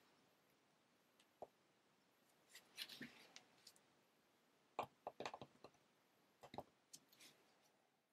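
Metal etching needle scoring lines into an acrylic drypoint plate through a taped-on paper drawing: faint short scratches and clicks in three small clusters.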